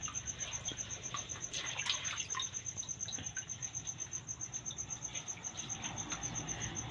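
Cricket trilling steadily, a high pulsed chirp at about eight pulses a second. Faint splashes and clicks of hands rinsing a blue crab in a tub of water come through in the first few seconds.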